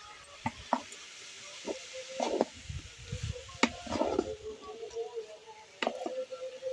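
Papaya pieces frying in ghee in a kadai, sizzling, as they are stirred, with a series of sharp knocks and scrapes of the stirring utensil against the pan.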